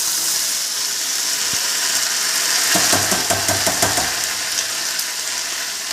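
Wet ground kharkol-leaf paste poured into hot mustard oil in a frying pan, sizzling loudly with a steady hiss and spitting crackle. About three seconds in, a run of quick clatters rises over the sizzle for a second or two.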